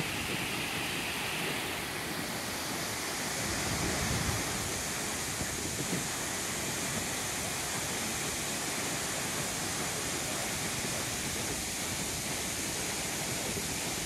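Ban Gioc waterfall's many cascades of falling water rushing as a steady, even roar, with a slight swell about four seconds in.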